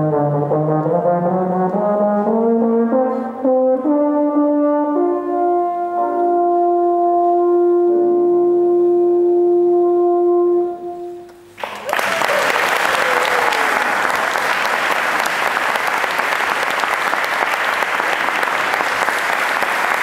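Euphonium solo over a brass band, climbing step by step to the piece's final long held note, which stops about ten seconds in. About two seconds later loud, steady applause begins and runs on.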